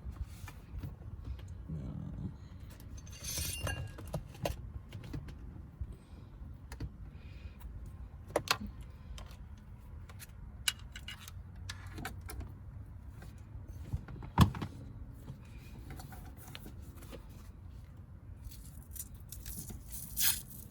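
Scattered light clicks and rattles of a wiring harness and plastic connectors being handled, with one sharper click about 14 seconds in.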